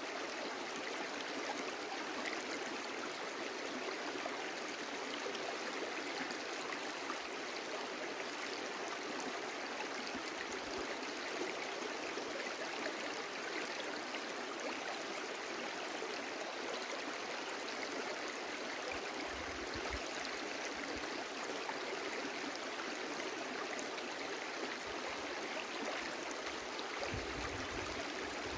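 A small brook flowing steadily, a continuous even rush and babble of water.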